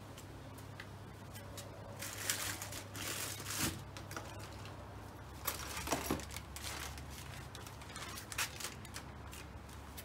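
Plastic packets rustling and crinkling, with a few light knocks, as they are rummaged through and lifted out of a plastic storage tub. The sound comes in several short bursts.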